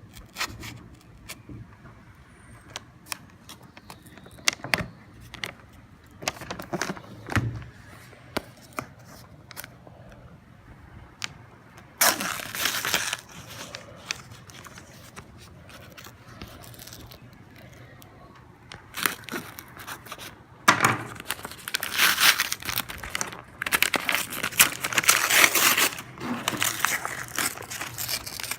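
A sealed package being torn open by hand. Scattered clicks and scratches, then a burst of tearing about twelve seconds in, and dense tearing and crinkling of the packaging through the last several seconds.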